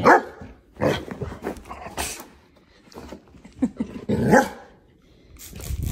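Bernese mountain dog barking several times, its calls bending up and down in pitch, the loudest at the start and about four seconds in. The dog is protesting at a waterless shampoo spray that frightens it.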